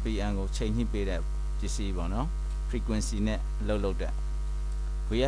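Steady electrical mains hum throughout, with a person talking over it.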